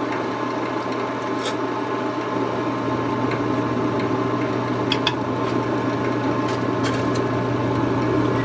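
A steady mechanical hum in a kitchen, with a few light clicks as a metal spoon scoops baked potato out of its skin into a pot of soup.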